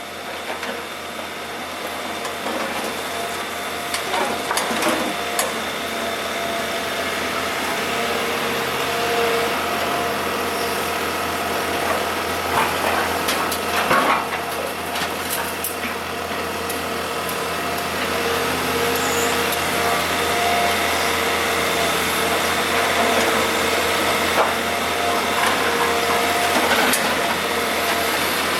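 Kobelco SK125W wheeled excavator's diesel engine and hydraulics working under load, growing louder over the first few seconds. A few sharp knocks and scrapes from the bucket and broken asphalt come through now and then.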